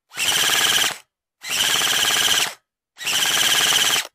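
Three rapid rattling bursts, each about a second long, with short gaps of dead silence between them.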